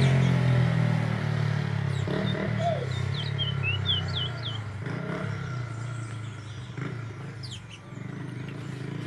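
Caged songbird giving a short run of quick chirping notes about two to four seconds in, and a few more near the end, over a vehicle engine's low hum that fades out during the first half.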